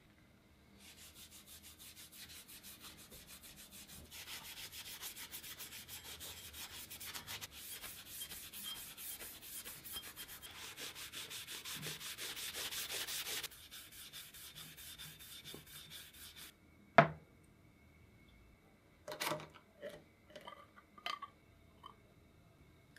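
A Scotch-Brite abrasive pad scrubbed rapidly back and forth over a metal hand-drill part, scuffing the surface before body filler, in fast even strokes that grow louder a few seconds in and stop about three quarters of the way through. Then comes one sharp knock, followed by a few clicks and metallic scrapes as the lid of a tin of body filler is pried off.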